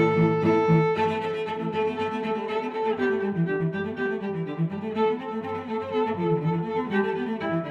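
Instrumental background music with bowed strings, fiddle and cello, playing held notes over a moving bass line.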